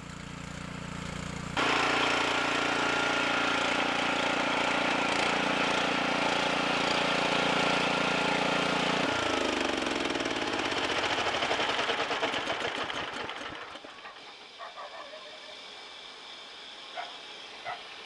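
Small tracked orchard carrier's engine running steadily, then slowing with a falling pitch about halfway through and dying away a few seconds later.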